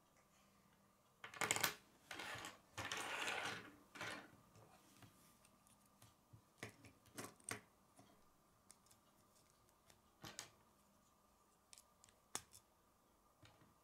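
K'nex plastic pieces being handled and snapped together: a stretch of louder rattling and handling from about one to four seconds in, then a few short sharp plastic clicks spread through the rest.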